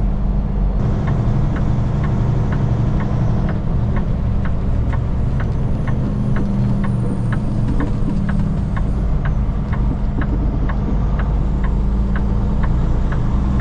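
Semi truck's diesel engine running steadily, heard from inside the cab, with a regular ticking about twice a second over it.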